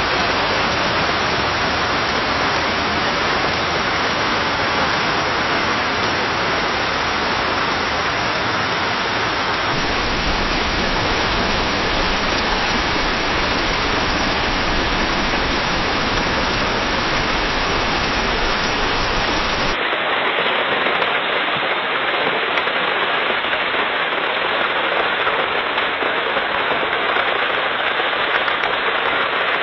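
Steady rain falling in a forest, pattering on leaves, in three successive recordings. The sound changes character about ten seconds in, gaining a deeper rumble, and again about twenty seconds in, where it turns thinner with little low rumble.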